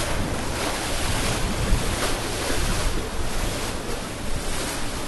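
Floodwater rushing in a steady, loud wash of noise, with wind on the microphone.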